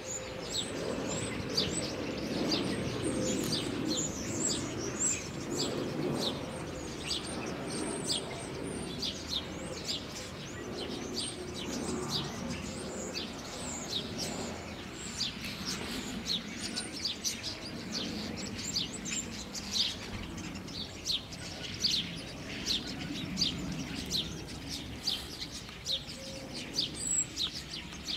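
Small birds chirping repeatedly, many quick high chirps throughout, over a steady low background noise.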